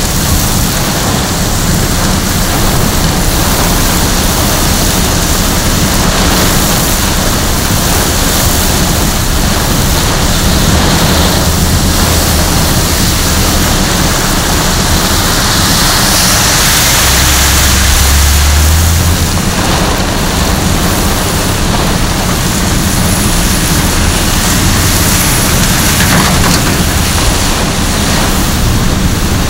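Hurricane wind and heavy rain: a loud, steady rush of noise, with gusts buffeting the microphone in low rumbles, heaviest about two-thirds of the way through.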